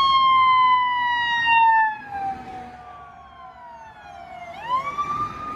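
Emergency vehicle siren wailing: one long slow fall in pitch, loud for the first two seconds and then much quieter, followed near the end by a quick rise back up to start the next cycle.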